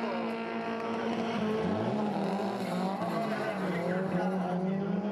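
Drift car engines held at high revs with tyres squealing and skidding. A second engine climbs in pitch about two seconds in.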